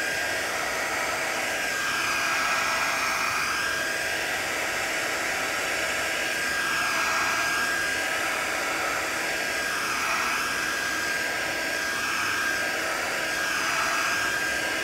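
Handheld hot-air blower running steadily, with a faint steady whine. Its rush shifts in slow sweeps every two or three seconds. It is warming the back of an iPhone over the battery to soften the adhesive strips that hold the battery in.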